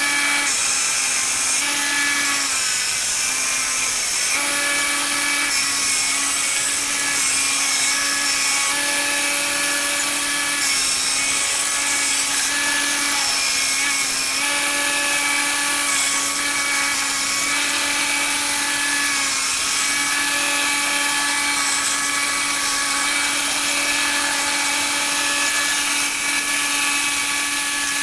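Belt grinder running steadily while the steel edges of a butcher's cleaver are ground against the belt. The motor's hum holds constant under a loud grinding hiss that swells and eases as the blade is pressed on and lifted off.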